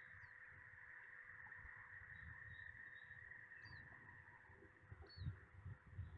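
Faint outdoor ambience at a nest webcam: a steady hiss with three short, high, falling bird chirps, over an uneven low rumble that swells about five seconds in.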